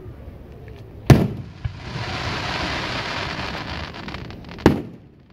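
Aerial fireworks shells bursting: two sharp bangs about three and a half seconds apart. Between them is a steady hiss lasting about two and a half seconds, with a few crackles near its end.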